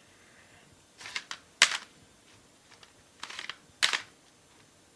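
A handful of short, sharp clicks and clacks of hard objects being handled, in small groups, the loudest about one and a half and about four seconds in.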